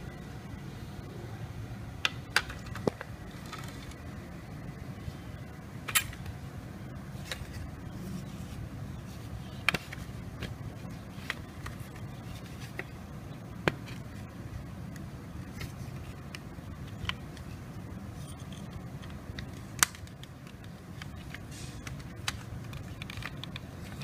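Scattered sharp clicks and taps from fingers handling and pressing the plastic case of a Tenda N150 wireless router, about ten in all and irregularly spaced, over a steady low hum.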